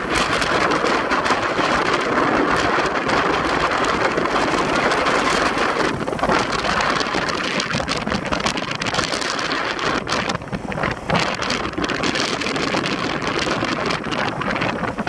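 Loud, steady rushing of wind buffeting the microphone, mixed with the sound of a vehicle on the move.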